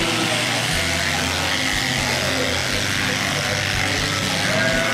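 Electric sheep-shearing machine running steadily with a continuous mechanical hum.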